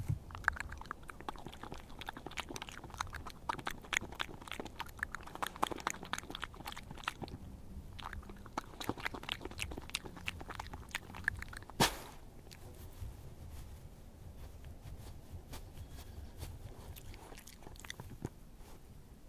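A Eurasian badger chewing and crunching peanuts and crackers, a dense run of sharp crunches for the first eleven seconds or so. One louder snap comes about twelve seconds in, and the crunching is quieter and sparser after it.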